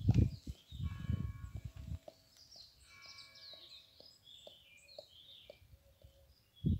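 Small birds chirping outdoors, a run of short rising and falling chirps through the middle seconds. Low rumbling bursts, louder than the birdsong, fill the first two seconds and come back briefly near the end.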